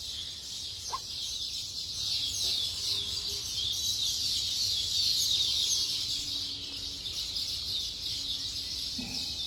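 A colony of weaver birds chirping all around the nest tree: a dense, unbroken chatter of many quick, high chirps, swelling slightly in the middle.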